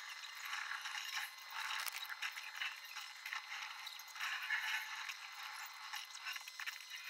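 Copic marker nib rubbing across a sketch card in short colouring strokes, a soft scratchy scraping that comes and goes every second or so.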